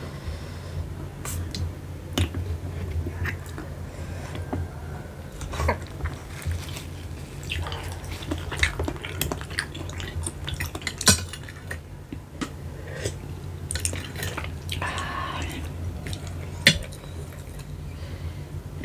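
Close-up clicking and tapping of spotted babylon sea snail shells as a wooden toothpick picks the meat out, with shells knocking on a glass bowl and wet sauce sounds. The clicks are irregular, with two sharper knocks, one about halfway through and one near the end.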